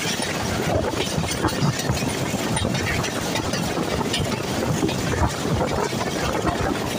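Passenger train coaches running along the track at speed, heard from an open door of the moving train: a steady rumble of wheels on rails, with many short clanks and rattles throughout.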